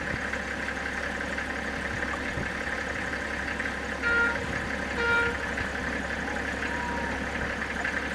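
Two short goat bleats, about a second apart, over a steady low background noise.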